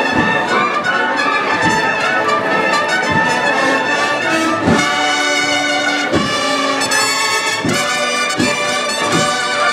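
Brass band playing a slow Holy Week processional march: sustained brass chords over a drum beat that falls about every three-quarters of a second.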